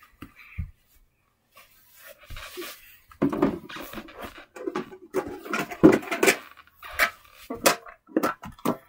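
Irregular rustling, scuffing and light knocks of a person moving about on a carpet and handling a small box, starting about three seconds in.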